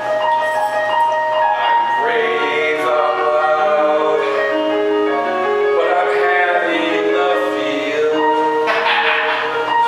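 Electronic keyboard playing live, with held chords and slow melody notes that change every second or so.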